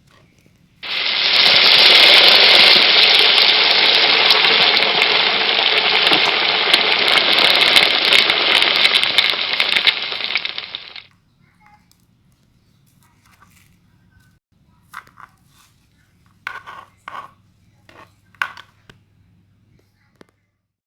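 Crackling clay being squeezed and pressed: a loud, dense crackle that starts about a second in and stops suddenly about ten seconds later. Only scattered short crackles and clicks follow.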